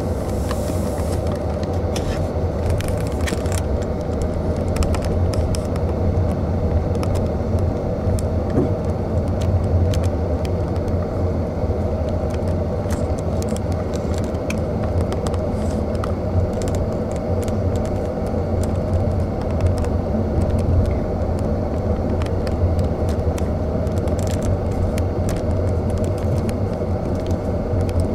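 Steady low rumble of a car's engine and tyres heard from inside the cabin while driving on an asphalt road, with faint scattered ticks.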